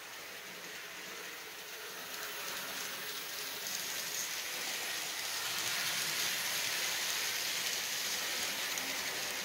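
Model passenger train running past on layout track: a steady hissing rattle of small wheels and motor that grows louder as it approaches and is loudest about two-thirds of the way through.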